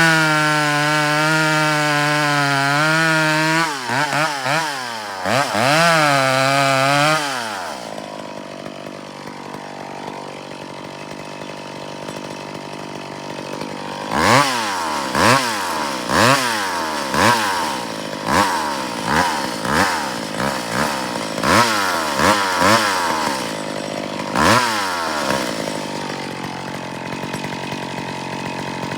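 Chainsaw run at full throttle for a few seconds, likely cutting the undercut in the tree, then revved twice and let down to idle. After a few seconds of idling it gives a string of short throttle blips, about one a second, and then idles again.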